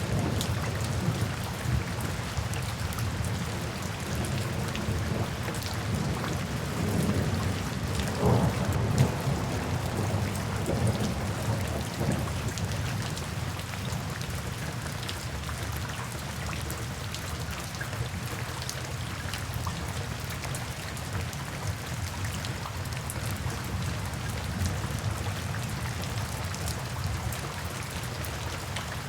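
Steady rain falling, with fine drop patter and a low rumble of thunder that is strongest in the first half and dies away after about twelve seconds.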